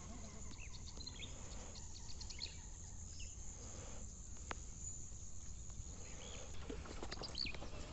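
Wetland ambience: a steady high insect drone, like crickets, that fades near the end, with scattered bird chirps over a low rumble and one sharp click about halfway through.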